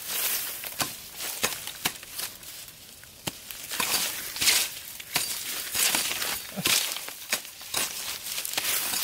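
Machete blade chopping and scraping into dry, gritty soil: a run of sharp, irregular strokes, each with a scratchy rasp of loosened dirt.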